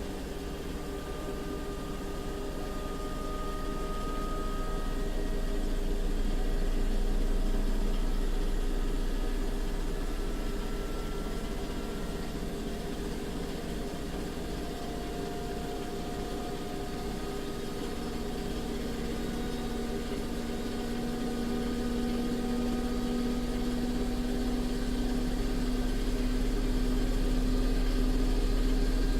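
Bosch washing machine on its spin cycle: a steady motor whine and drum hum whose pitch creeps slowly upward as the drum gathers speed. It gets louder, eases off, then builds again toward the end.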